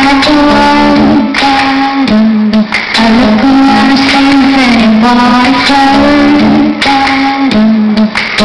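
Live music at a concert: a singer holding long, slowly changing notes over the accompaniment, recorded loud.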